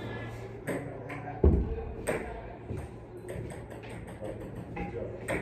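Metal gym weights and equipment being handled: a heavy thud about a second and a half in, with several lighter metallic clinks and knocks around it.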